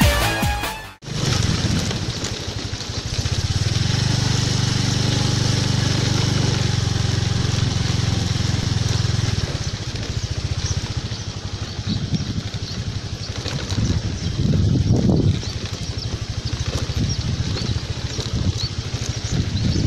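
Electronic intro music cutting off about a second in, then an engine running steadily nearby for several seconds, fading out near the middle, followed by outdoor noise with intermittent low rumbles on the microphone.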